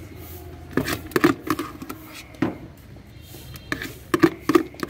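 A metal spoon knocking and scraping inside a plastic bucket while scooping puffed-rice mix, in a few short clusters of clicks.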